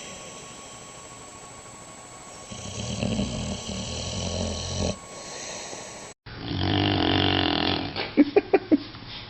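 Sleeping dogs snoring: a long, slow snore, then, after a cut, a louder snore followed by a quick run of about four short, loud snorts.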